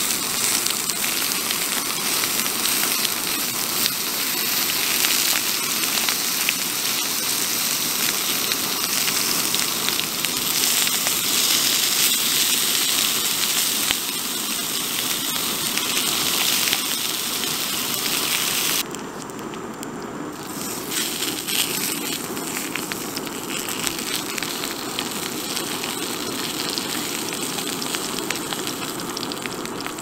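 Nürnberger Rostbratwürstchen sizzling and crackling in hot fat in a small pan over a gas cartridge stove. About two-thirds of the way in the sizzle drops away suddenly, then carries on a little quieter.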